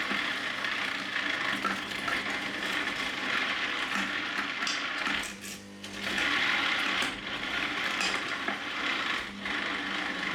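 Electric mixer with a chopping attachment running, vegetable pieces clattering around the bowl as they are chopped. It eases off for about a second around the middle, then runs on.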